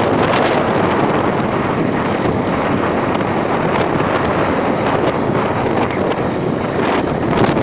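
Steady wind buffeting the microphone of a moving open vehicle, mixed with the vehicle's running noise.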